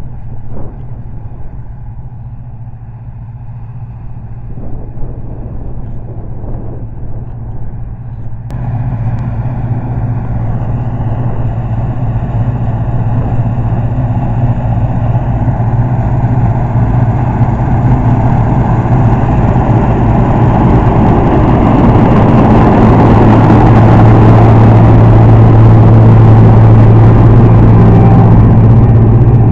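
Laverda M305 combine harvester running as it threshes barley: a steady engine hum with the noise of the machinery, stepping up suddenly about a third of the way in and growing steadily louder toward the end.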